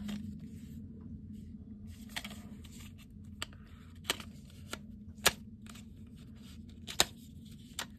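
Small paperboard box being handled and opened by hand: faint rustling of card with several sharp clicks and ticks of the flap and fingers, the loudest about five and seven seconds in.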